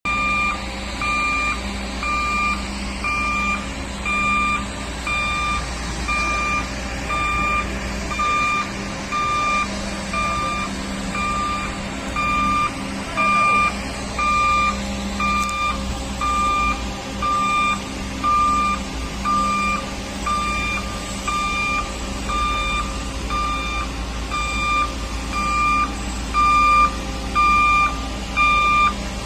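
Warning beeper on a rubber-tyred straddle carrier (girder carrier) sounding a steady pulsed beep about once a second as the machine travels under load with a full-span concrete girder, over the low, steady drone of its engine.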